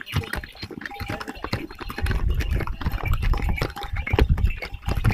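Hooves of ridden horses clopping on a stone-paved path as they walk past, with gusts of wind buffeting the microphone from about two seconds in.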